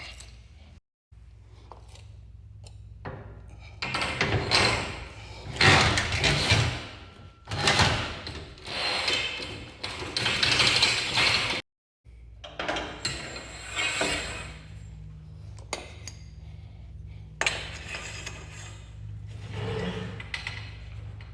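Metal scraping, rattling and clanking as a new garage door torsion spring is slid onto the steel torsion tube and worked into place. The handling is loudest in the first half, then lighter clanks.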